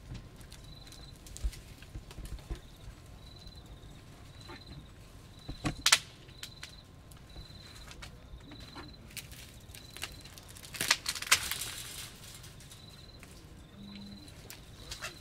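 African elephant breaking branches and stripping bark from a tree at a fence: scattered sharp cracks and snaps, loudest about six seconds in and again around eleven seconds. A high chirp repeats steadily in the background.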